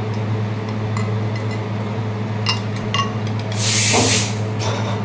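Metal spoons clinking lightly against drinking glasses and a glass jug over a steady low hum, then, about three and a half seconds in, a short loud hiss lasting under a second.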